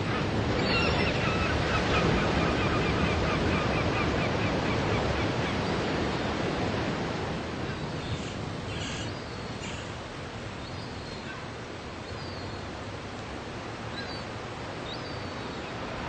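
Ocean surf breaking and washing up a sandy beach, a steady rush of water that eases off about halfway through. A faint run of short high notes sounds over it in the first few seconds.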